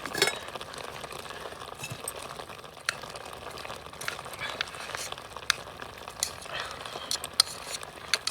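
Scattered light clicks and taps of eating utensils against a bowl and pot during a meal, over a steady faint hiss.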